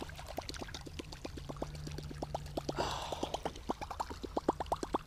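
Chopper-style topwater musky bait, a Chaos Tackle Big Mama Lil Sister, being retrieved: its spinning blade churns the surface in a rapid, even run of plops, about nine a second, with a splash about three seconds in.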